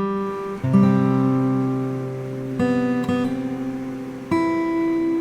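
Acoustic guitar music: slow strummed chords, each left to ring for a second or two before the next.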